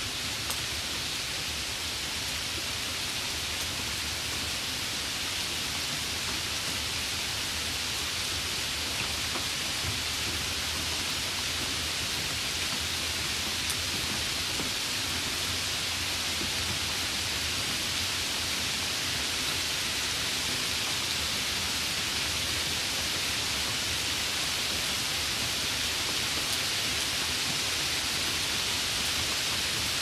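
Steady rain: an even, high hiss with no single drops or claps standing out.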